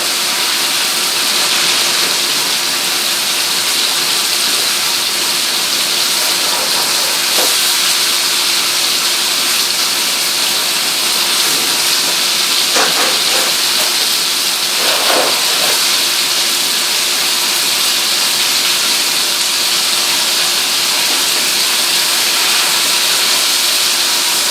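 Flour-dredged chicken breast slices frying in olive oil, butter and bacon fat in a shallow sauté pan: a steady, even sizzle, the pan hot enough to brown the meat.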